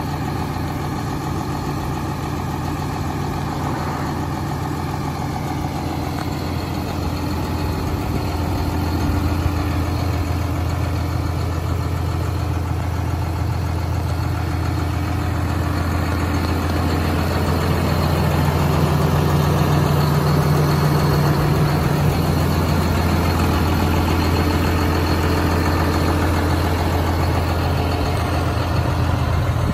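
John Deere 7530 tractor's six-cylinder diesel engine idling steadily, its low hum growing a little louder partway through.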